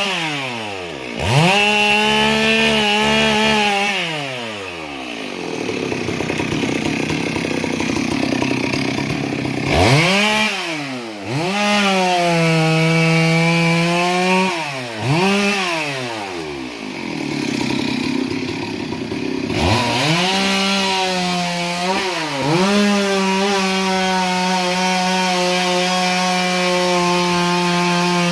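Two-stroke chainsaw running at high revs, its pitch dropping and picking up again several times as the throttle is released and squeezed. Two rougher stretches suggest the chain biting into wood.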